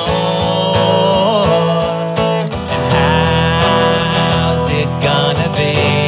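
Acoustic guitar playing a song with a steady strummed rhythm, in a wordless instrumental stretch.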